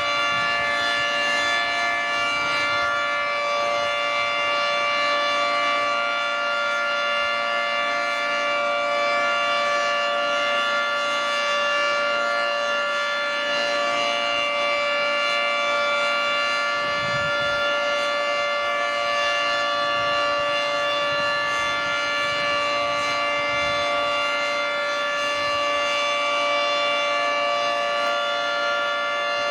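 Federal Signal 3T22 three-tone rotating outdoor warning siren sounding its steady alert signal: a loud chord of several tones held at a constant pitch, without rising or falling.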